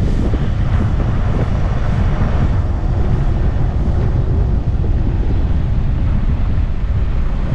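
Steady low rumble of a car on the move, with wind buffeting the microphone over the road noise.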